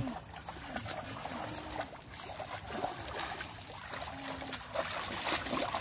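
Shallow muddy water sloshing and splashing as people wade and grope by hand in the mud, with a louder splash right at the start.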